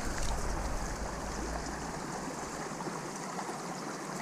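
Shallow stream water running steadily over rocks.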